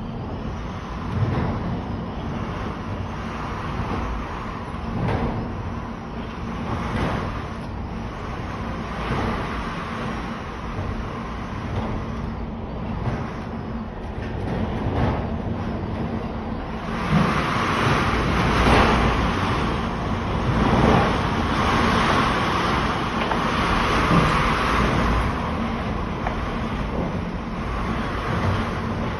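Strong wind blowing in gusts, a rushing noise that swells and eases and grows louder a little past halfway.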